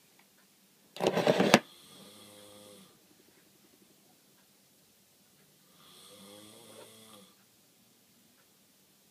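A man snoring in his sleep. About a second in comes one loud, harsh snort. Softer snores follow, one trailing right after it and another about six seconds in.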